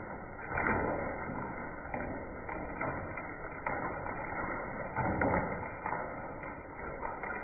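Hail storm: a steady hiss of falling rain and hail, with irregular sharp cracks of hailstones striking hard surfaces.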